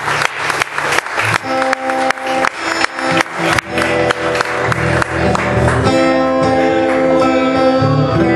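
Acoustic guitar strummed in a steady rhythm, with a sharp beat about four times a second for the first few seconds. The chords ring out longer and fuller from about six seconds in.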